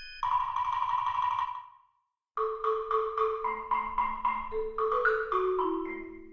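Background music: a light, bouncy mallet-percussion melody like a marimba, which starts after a short buzzy sound effect and a brief silence about two seconds in.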